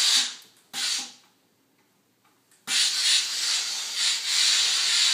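Steam iron hissing as it blasts steam into a jacket sleeve on a sleeve board: a hiss dying away just after the start, a short puff about a second in, then a long steady hiss of about two and a half seconds after a brief quiet.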